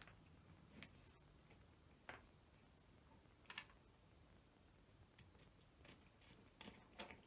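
Faint, scattered clicks and taps at irregular intervals from small wires and connectors being handled while heat-shrink tubing is slid over a joint.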